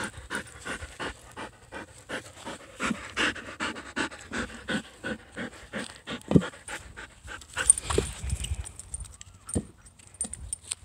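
A dog panting hard close by, quick rhythmic breaths about three a second, with two sharp knocks in the second half. The panting becomes quieter and less regular near the end.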